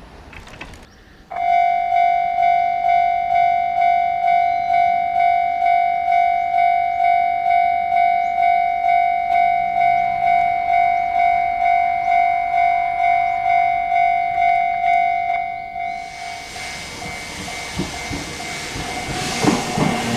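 Japanese level-crossing alarm starting about a second in: an electronic bell dinging steadily a little over twice a second. From about sixteen seconds in, the noise of an approaching train rises and grows loudest near the end, half covering the bell.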